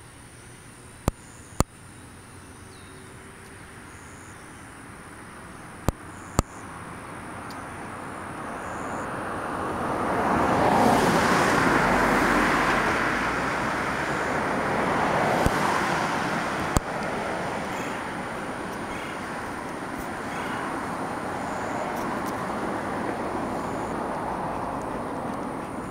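A road vehicle passing, its noise swelling about ten seconds in and then slowly easing off, with a few sharp clicks scattered through.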